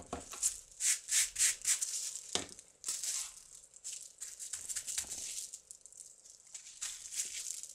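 Plastic bubble wrap crinkling and crackling in irregular spurts as it is handled and pressed by hand onto a painted canvas page.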